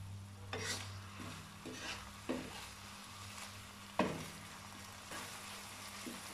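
Small pieces of spiced chicken frying in a pan with a faint sizzle, stirred with a wooden spatula that scrapes and taps the pan a few times, most sharply about four seconds in.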